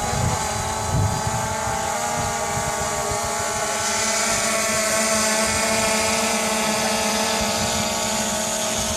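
DJI Phantom 2 quadcopter's electric motors and propellers humming steadily with several held tones, a little louder from about four seconds in. Wind buffets the microphone underneath.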